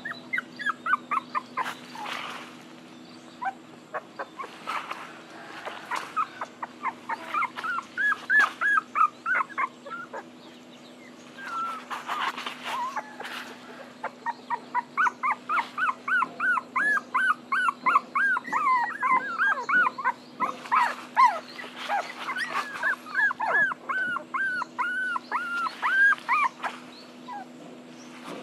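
Young puppies crying in quick runs of short, high-pitched whines and yelps, several to a second, in bouts with short pauses, the longest bout through the second half. They are crying for their mother.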